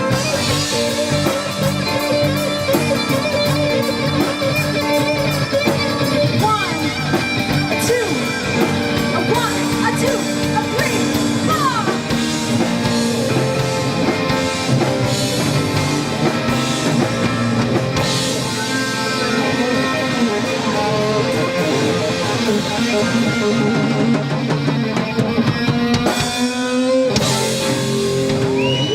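Live rock band playing, led by electric guitar over a drum kit, with no singing.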